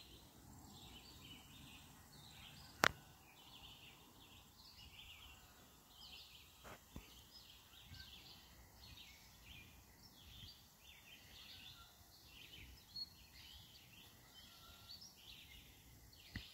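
Faint high-pitched chirping that repeats steadily about twice a second. A sharp click comes about three seconds in, and a few fainter clicks follow later.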